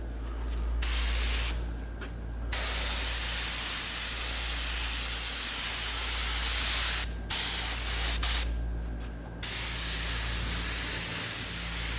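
Spray gun spraying wood dye in several trigger pulls: a hiss that starts and stops, the longest lasting about four seconds, over a steady low hum.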